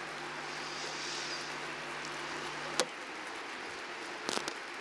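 Ambience of a large hall with a seated audience: a steady faint hiss under a low hum. The hum stops with a click about three seconds in, and a brief rustle or cough comes near the end.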